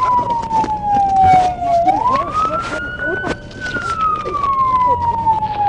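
Police siren on wail: its pitch slides slowly down, sweeps back up, holds briefly and slides down again, with scattered clicks and knocks underneath.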